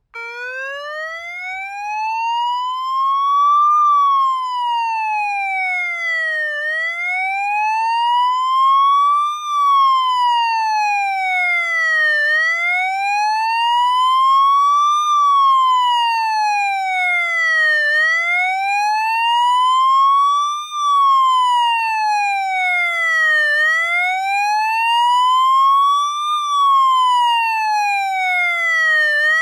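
Police motorcycle siren sounding a slow wail, its pitch rising and falling smoothly and evenly about every six seconds.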